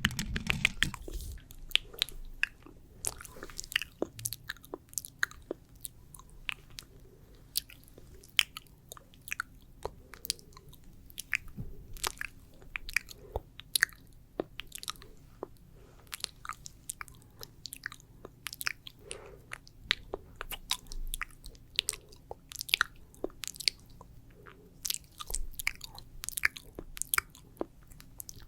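Wet, sticky ASMR mouth sounds made close to the microphone: saliva clicks and lip smacks coming several times a second at an uneven pace.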